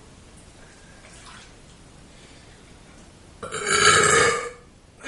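A person burps once, a long, loud burp about three and a half seconds in that lasts about a second.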